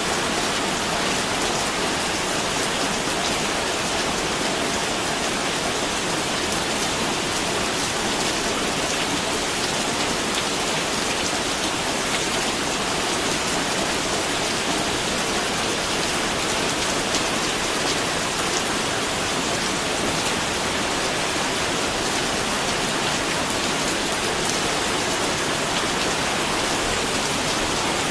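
Steady rain falling on a surface, an even hiss with a fine patter of drops and no change in strength.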